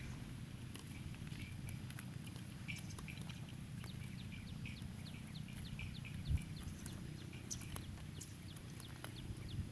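Birds chirping in quick, short, falling chirps, several a second, over a low steady rumble, with a dull thump about six seconds in.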